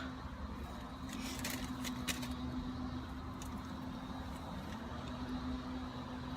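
Steady hum of a running car heard from inside the cabin, with a few light clicks and rustles about one and a half to two seconds in.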